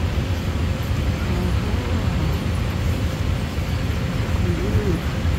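A steady low rumble from a station escalator carrying the rider down to the platform.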